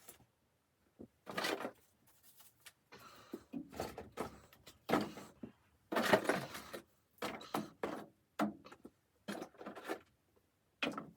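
Irregular handling noises: a string of short knocks, clunks and rustles, some sharp and some scraping, coming every second or so.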